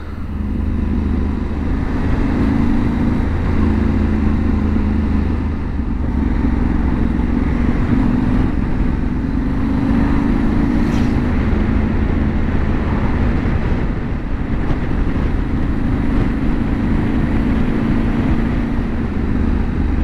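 Yamaha Ténéré 700's parallel-twin engine running under way at road speed, heard from the bike itself, with wind and road rush. The engine note holds steady, shifting slightly a few times as the throttle changes.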